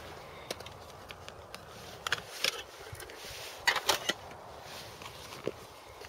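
A metal camping cook kit being handled and lifted out of a canvas bag: a scatter of light clinks and knocks, a few close together near the middle, with rustling of the bag.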